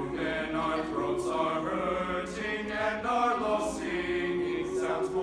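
Male a cappella choir singing in close harmony: held chords of men's voices moving from one to the next, with crisp 's' consonants now and then.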